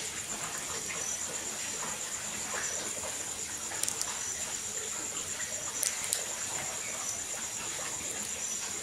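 Wood cooking fire burning with soft crackling and a few sharp pops, about four and six seconds in, over a steady, high, pulsing tone.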